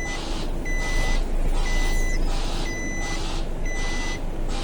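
Recycling lorry's reversing alarm sounding about once a second, each beep a steady tone mixed with a hiss, over the lorry's engine running low underneath.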